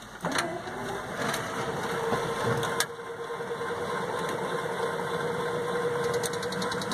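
A van's motor running steadily. A steady hum starts after a click about three seconds in, and a rapid ticking comes in near the end.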